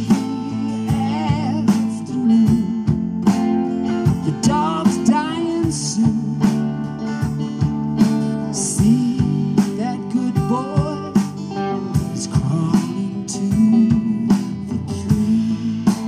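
Live band playing: an electric guitar lead with bent, wavering notes over drums and cymbals.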